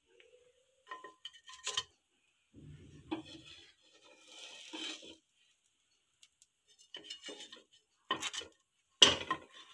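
Wooden spatula scraping and knocking against a non-stick tawa and a plate as toasted bread slices are lifted off and set down, in short separate bursts, the sharpest knock near the end.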